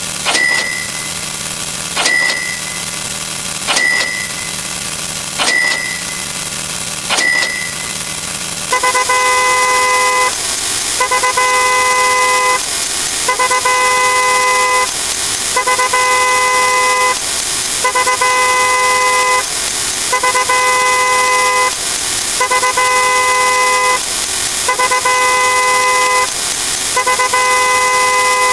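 A car-horn sound effect honking over and over, each honk about a second and a half long, about every two seconds from about 9 s in. Before that, a repeating sound effect of a sharp click and a short high beep about every 1.7 seconds over a steady hum.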